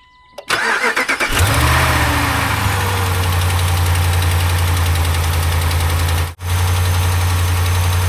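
Diesel engine of heavy construction equipment cranking briefly, catching about a second in, and settling into a steady idle. It is a sound the operator thinks doesn't sound good.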